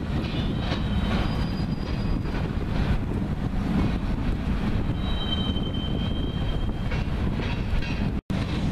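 Freight train of loaded centerbeam flatcars rolling past: a steady low rumble from the cars, with thin high wheel squeals coming and going, the longest from about five to seven seconds in. The sound drops out for an instant near the end.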